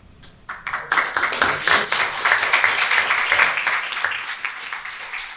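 Small audience applauding. The clapping starts about half a second in, is full within a second, and fades out near the end.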